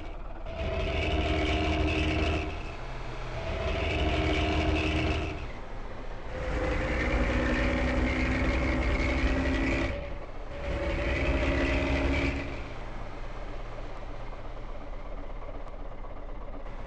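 Bus engine with a modified "ngorok" (snoring) exhaust, revved four times, each rev held for two to four seconds over a deep low rumble and dropping back in between. After the fourth rev it settles to a steady idle.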